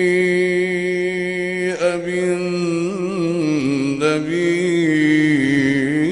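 A man reciting the Quran in melodic tajweed style, holding one long drawn-out vowel: the pitch stays steady for about the first two seconds, then moves through wavering ornaments and steps lower.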